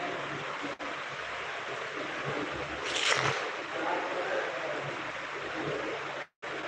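Steady hiss, with a louder rustle about three seconds in; the sound cuts out for a moment near the end.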